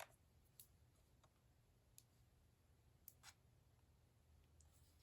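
Near silence broken by a few faint clicks of buttons being pressed on a cordless phone's answering-machine base.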